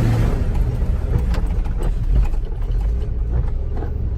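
1994 Ford F-150 4x4 pickup driving along in second gear, its engine running with a steady low rumble.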